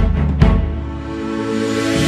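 Background music: a drum hit about half a second in, then a held chord under a swelling hiss.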